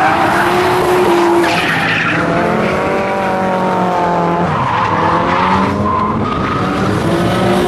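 Drift car's engine revving hard, its pitch rising and falling as the throttle is worked, with the tyres squealing and skidding as the car slides sideways.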